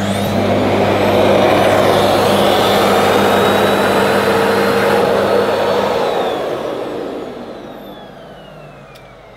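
Hoover Discovery bagless cylinder vacuum cleaner running at full power, then switched off by docking the wand and floor tool in its parking slot; about two-thirds of the way through, the motor winds down with a falling whine.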